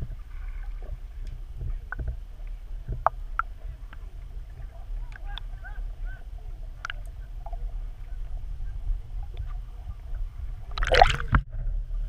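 Underwater sound heard through a submerged camera: a steady low rumble with scattered sharp clicks and a few faint short squeaks, and a loud rush of noise about eleven seconds in.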